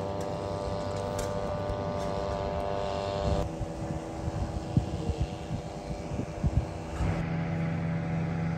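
Motorboat engines droning steadily across the water. The pitch pattern changes twice, at about three and a half and seven seconds in.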